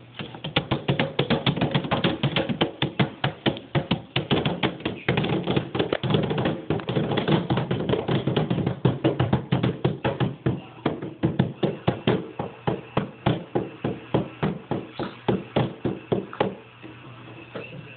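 Hands slapping the plastic lid of a picnic cooler like a drum: a quick, uneven run of slaps, a few a second, that stops about a second and a half before the end.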